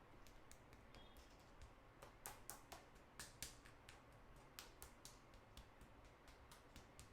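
Hair cracking in an Indian head massage: faint, sharp crackles as strands of hair are pulled tight between the fingers, coming in a quick irregular run that is thickest in the middle.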